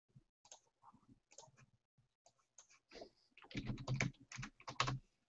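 Typing on a computer keyboard: scattered keystrokes at first, then a quick run of keys from about three and a half seconds in.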